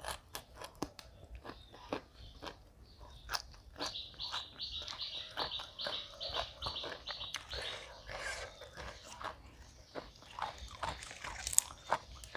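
Close-up eating sounds: crunchy bites and chewing of spicy green papaya salad, with a run of sharp crunches throughout. In the middle, for a few seconds, a quick series of high chirps at about three or four a second.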